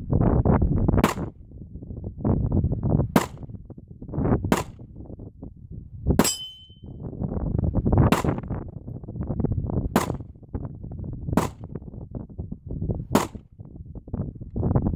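Eight shots from a 9 mm M17 pistol, fired one at a time about one and a half to two seconds apart. One shot, about six seconds in, is followed by a brief metallic ring.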